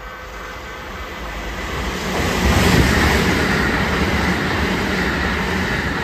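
Kintetsu 22000 series ACE limited express electric train passing through the station at speed: its rumble grows from about a second in, peaks as the cars pass close at around three seconds, then holds as a steady loud rush of wheels on rails with some rail clatter.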